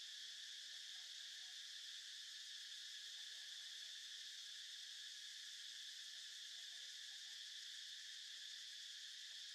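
Steady high-pitched drone of an insect chorus, even and unbroken throughout.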